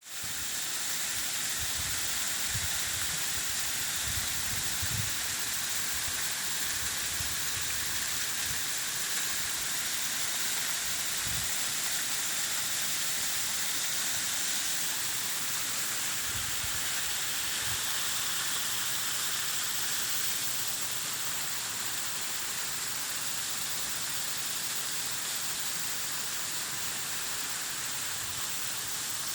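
Waterfall: a steady, hissing rush of falling water, with a few brief low thumps.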